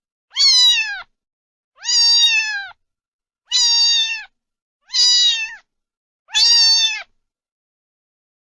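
A cat meowing five times in a row, each meow under a second long and falling in pitch at the end, about one every second and a half.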